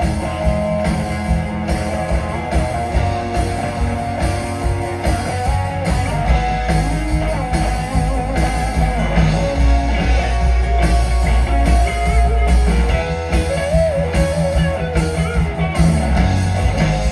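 Rock band playing live, electric guitar over bass and drums with a steady beat.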